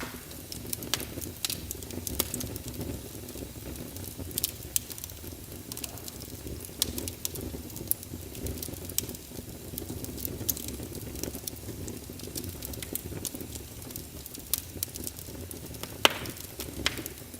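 Fire burning in a fireplace, crackling: irregular sharp pops and snaps over a steady low rumble of flame, with two louder pops near the end.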